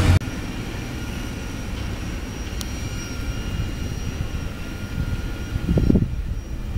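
Freight train cars rolling past a grade crossing: a steady rumble of the wheels with faint steady high tones above it, and a couple of low thumps near the end.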